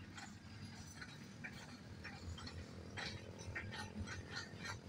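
Freight train of loaded coal-hopper wagons rolling slowly past: a low rumble with frequent light, irregular clicks and clinks from the wheels and couplings.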